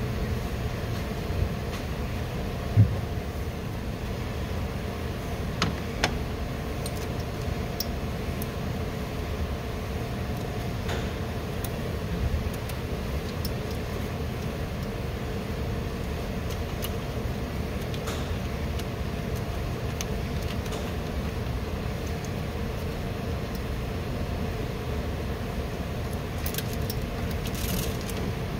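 Steady workshop background hum, with a few sharp clicks scattered through it, the loudest about three seconds in.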